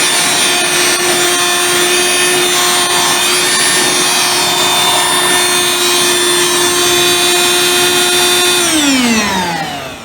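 Corded Dirt Devil handheld vacuum cleaner running with a steady high motor whine. It is switched off about eight and a half seconds in, and the whine falls in pitch and fades as the motor winds down.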